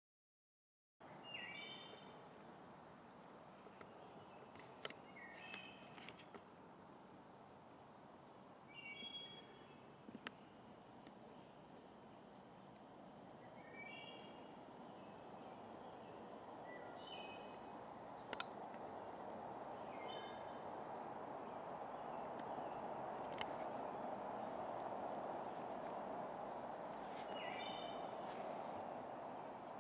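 Woodland insects keep up a steady high-pitched drone, starting about a second in. Short chirping calls repeat every few seconds over it, and a soft hiss grows louder in the second half.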